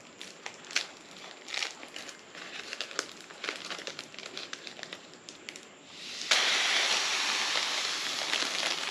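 Foil letter balloon crinkling and rustling with scattered crackles as a drinking straw is worked into its valve. About six seconds in, a steady rush of breath blown through the straw into the balloon begins and lasts about two and a half seconds.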